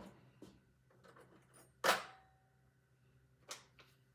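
Kitchen handling sounds: one sharp clack about two seconds in with a brief ring after it, then a softer knock, as cookware or utensils are set down.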